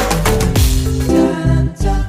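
Background music: a song with a steady beat and sung vocals.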